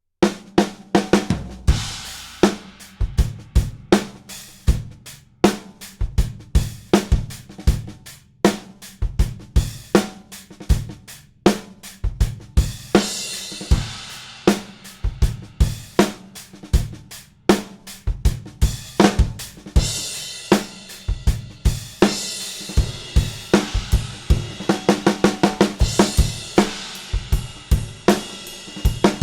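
Gretsch Broadkaster snare drum played in a groove on a full drum kit, with kick drum and hi-hat under it and cymbal crashes at several points.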